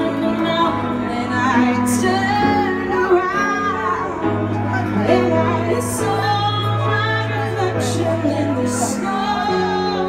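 A woman singing live into a microphone while accompanying herself on piano, her voice holding long notes over sustained piano chords.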